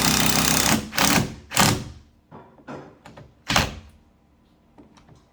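Cordless impact driver driving a long screw through a door hinge into the wood behind. It runs steadily for under a second, then gives three short bursts as the screw seats.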